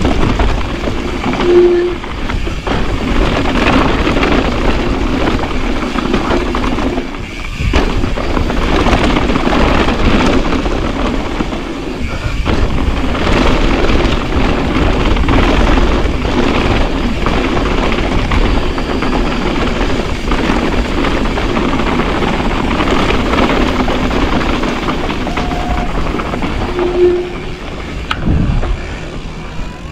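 Mountain bike rattling down a rough dirt trail: a steady loud clatter of the bike and tyres over rocks and roots, with a few short squeaks.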